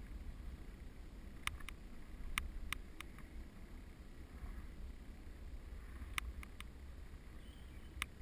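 Steady low wind rumble on the microphone of a bicycle-mounted camera as the road bike coasts along a lane, broken by irregular sharp clicks in small groups of two or three.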